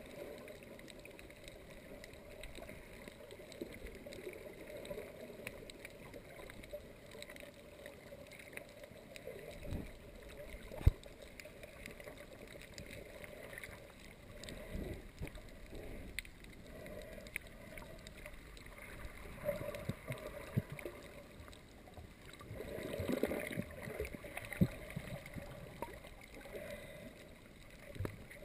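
Muffled underwater ambience picked up by a GoPro below the surface: a faint, even water noise with soft gurgles and a few sharp clicks, the loudest click about eleven seconds in.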